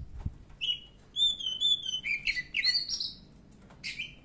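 Oriental magpie-robin singing: clear whistled notes and slurred phrases, with a long held whistle in the first half and a quick run of varied notes after it, a short lull, then another phrase near the end.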